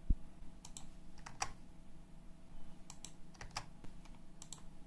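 Typing on a computer keyboard: fairly quiet key clicks in short irregular runs, over a faint steady hum.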